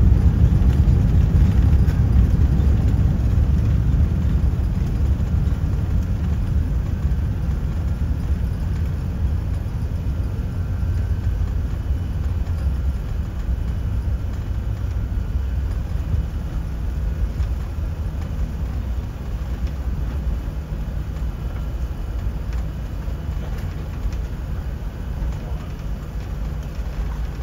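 Airbus A380 cabin noise during the landing rollout: a low rumble of the aircraft decelerating on the runway, fading gradually as it slows, with a steady low hum coming in about halfway through.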